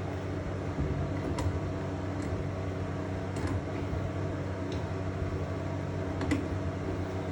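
A steady low machine hum, like a fan or motor running, with a few light clicks and taps scattered through it from the valve fittings being worked on.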